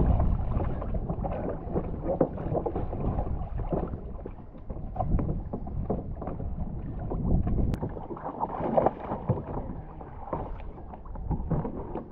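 Sea water splashing and sloshing around a plastic sit-on-top kayak as a swimmer in fins hauls himself aboard, with irregular splashes and knocks against the hull, loudest at the start.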